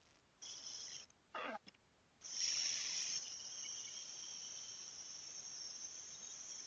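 Steady high-pitched chirring of insects, cutting in and out during the first two seconds and then running on, with a short sound that falls steeply in pitch about a second and a half in.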